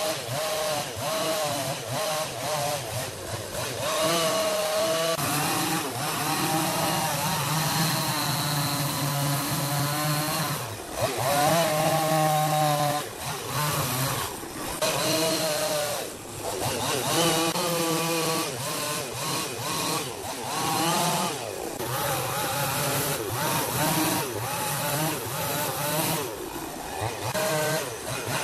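Chainsaw running and cutting into wood, its engine revving up and easing off over and over.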